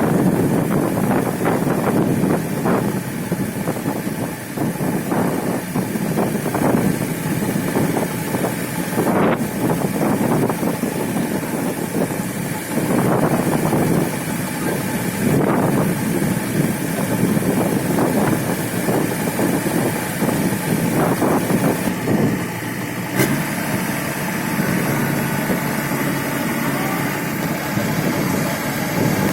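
Combine harvester engine running steadily; the sound changes abruptly about 23 seconds in.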